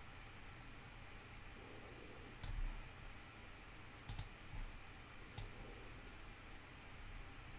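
Computer mouse clicking faintly a few times: a single click, a quick double click, then one more, over a low room hiss.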